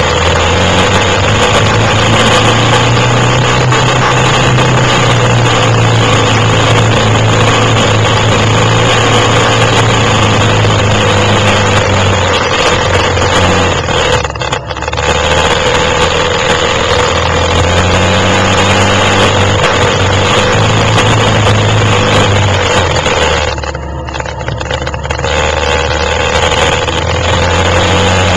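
Quad bike (ATV) engine running under load off-road, its pitch shifting with the throttle; the throttle eases off briefly about halfway through and again for a couple of seconds near the end before the engine picks up again.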